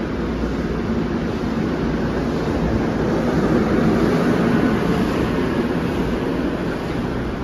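NJ Transit Comet passenger coaches rolling past as the train departs, a steady rumble of wheels on the rails that swells a little about four seconds in.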